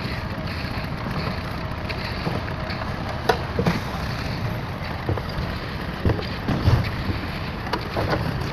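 Steady wind noise on the microphone, with scattered light knocks and clicks.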